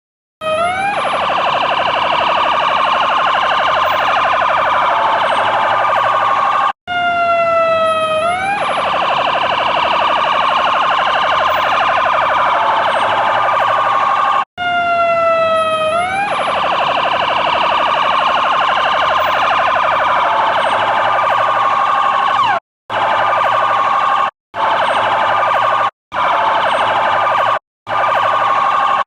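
E2QB siren cycling through tones: bursts of fast, repeated rising chirps, each giving way to a harsh, buzzing steady horn tone held for several seconds. Near the end the horn tone sounds in separate blasts of about a second and a half, each cut off sharply.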